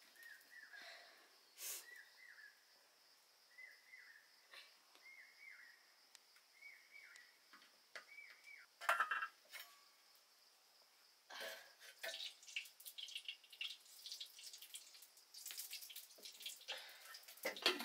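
Faint kitchen handling sounds: light clinks, taps and a few sharper knocks of metal utensils and dishes, growing busier near the end. A small high chirping call repeats about once a second through the first half.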